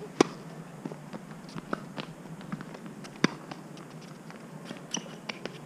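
Tennis rally on a hard court: a racket strikes the ball about every one and a half seconds. The near player's hits, about a quarter-second in and about three seconds in, are the loudest, and the far player's returns are fainter, with light shoe taps between the strikes.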